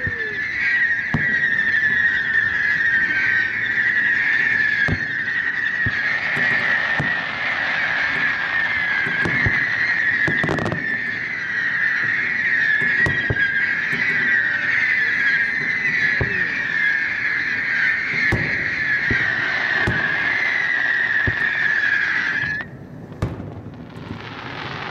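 Aerial firework shells bursting with distant booms, a dozen or so at irregular intervals of one to three seconds. Under them runs a steady, slightly wavering high-pitched whine, louder than the booms, which cuts off suddenly near the end.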